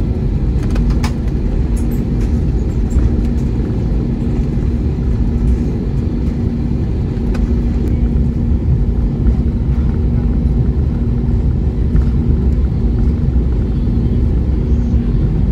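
Airliner cabin noise: a steady low rumble with a constant hum from the engines and airframe, with a few faint clicks about two seconds in.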